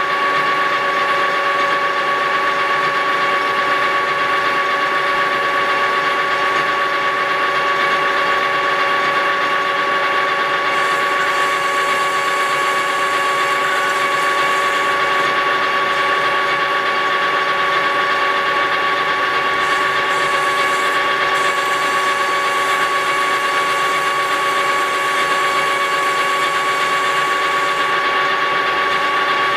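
Metal lathe running at steady speed with a steady high whine, its boring bar cutting inside a spinning aluminium wheel hub.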